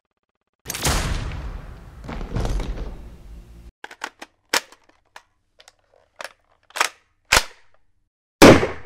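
Glock 17 9mm pistol sound effects: first a rumbling gunshot sound with a long echoing tail that swells twice, then a string of short sharp cracks and clicks of uneven loudness, and one loud single pistol shot near the end.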